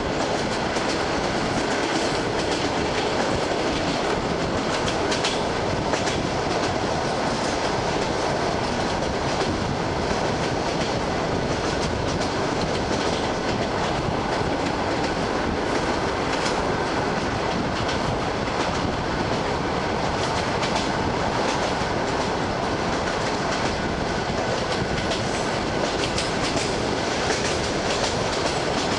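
Wheels of an ED9M electric multiple unit clattering over the rail joints at speed, over a steady rolling noise, heard from a window of the moving train.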